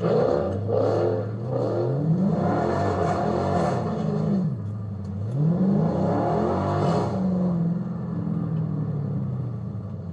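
Dodge Scat Pack's 6.4-litre V8 revving up and easing off several times while driving, the pitch rising and falling in repeated sweeps.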